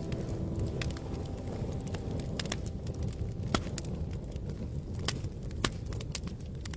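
Fireplace crackling: a steady low rumble of burning logs with irregular sharp pops and snaps, a few of them louder than the rest.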